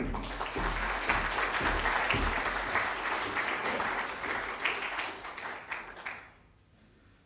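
Audience applauding, dying away about six seconds in.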